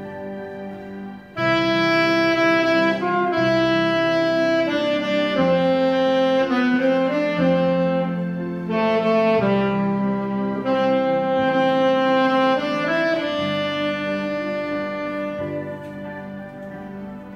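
Alto saxophone playing a slow melody of long held notes; the playing drops away briefly about a second in, then the next phrase begins.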